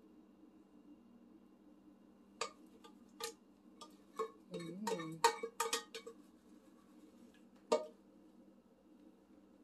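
Kitchen clatter: a scatter of sharp clicks and knocks, like dishes or utensils being handled, starting about two seconds in and bunching together around the middle, with one last knock near the end, over a low steady hum.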